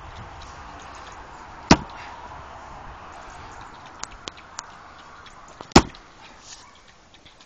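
Two heavy chopping blows into a thick, hard log being split lengthwise, about four seconds apart, with three light knocks between them.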